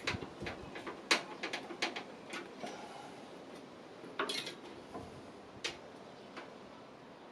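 Irregular small clicks and clatter of PC parts and cables being handled and fitted into a computer case, with a few sharper knocks about a second in and around four and five and a half seconds in.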